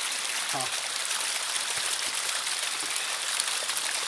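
Small mountain spring trickling and splashing down a rocky slope: a steady hiss of running water. A brief voice sound about half a second in.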